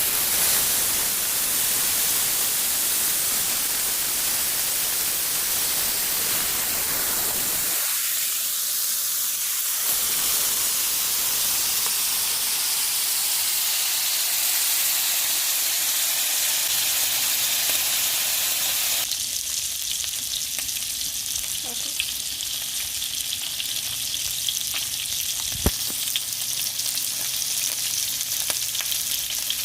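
Marinated pork chops sizzling steadily in hot oil in a frying pan. The sizzle changes abruptly and thins partway through, and there is a single sharp knock near the end.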